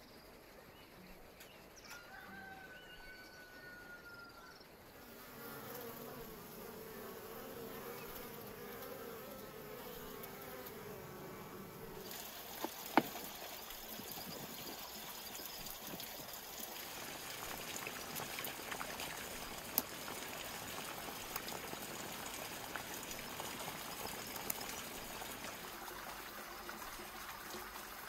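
A fly buzzing, wavering in pitch, for several seconds after a few faint bird whistles. About twelve seconds in, a steady rushing hiss sets in and carries on, with a few sharp clicks.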